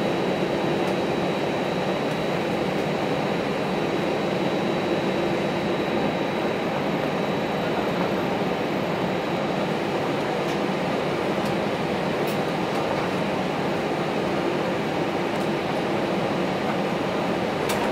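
Steady cabin noise of a jet airliner taxiing after landing, heard from inside the cabin: a constant engine and air-conditioning rush with a thin, steady high whine over it.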